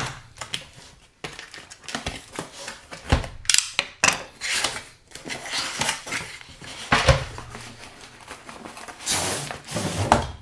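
Cardboard packaging being handled and opened: irregular rustling, scraping and sliding with a few knocks as the box is worked open.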